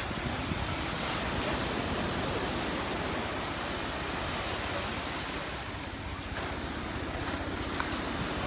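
Surf washing onto the beach in a steady wash of noise, with wind buffeting the microphone in a low rumble.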